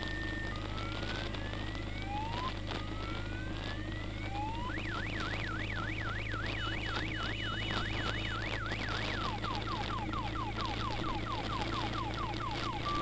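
Electronic siren cycling through its tone patterns: a few slow rising wails, then a fast yelp of about four up-and-down sweeps a second, then quick falling sweeps, switching back to a two-tone hi-lo at the very end. A steady low engine drone runs beneath.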